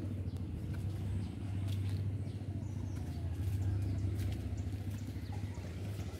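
Steady low outdoor rumble, with faint bird chirps and a few light clicks over it.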